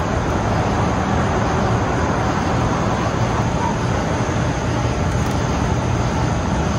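Loud, steady rushing outdoor noise with a constant low rumble and no distinct events.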